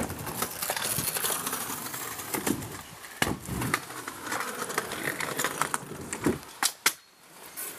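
Kick scooter wheels rolling over an asphalt driveway, with a few sharp clacks of the scooter striking the ground or ramp; the clearest comes just past three seconds and another near the end.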